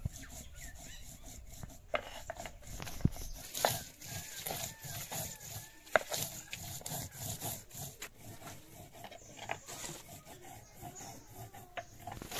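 Chillies being crushed on a flat stone grinding slab with a hand-held half-moon stone: repeated rubbing, scraping strokes of stone on stone, with a few sharp knocks. Faint repeated chirps sound in the background.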